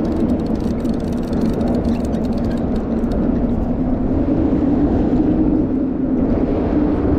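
Steady drone of road traffic crossing the bridge overhead: a low, even hum with a steady tone in it.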